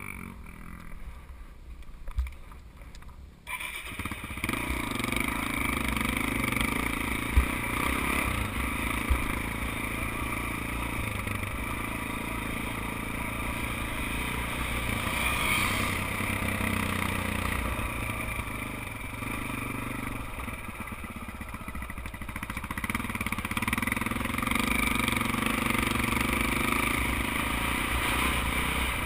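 Dirt bike engine, quieter for the first few seconds, then pulling away about four seconds in and running steadily under throttle across sand, with wind on the microphone. A few sharp knocks stand out along the way.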